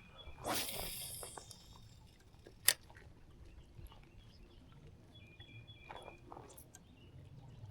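A brief rushing swish, then a single sharp click about two and a half seconds in, the loudest sound; birds chirp faintly at the start and about six seconds in.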